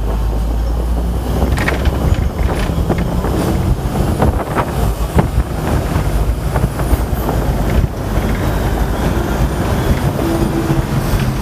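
Hong Kong double-decker tram running along its rails: a steady low rumble with scattered clicks and knocks from the wheels and car body.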